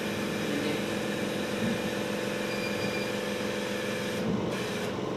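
The B-020A 5-in-1 body-slimming machine running: a steady motor and pump hum, changing slightly about four seconds in.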